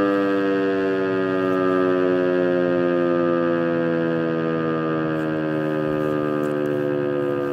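DS977 motor siren sounding a test alarm, its howl slowly falling in pitch.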